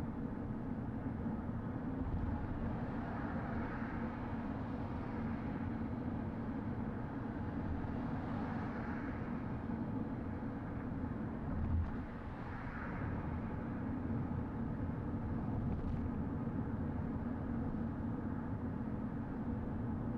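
Car driving at speed on a motorway-grade road: steady tyre and road noise with a low engine drone, swelling a few times, and one brief low thump about twelve seconds in.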